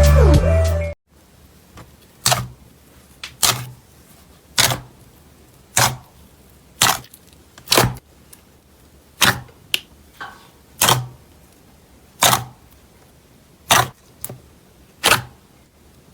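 Slime being pressed and handled, each press giving a short, sharp pop or crackle, about a dozen in all at roughly one a second. Intro music cuts off about a second in.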